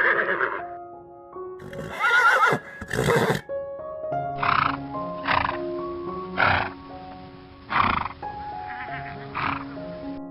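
An animal calling again and again in short calls, about once a second or so, over background music with sustained melodic notes.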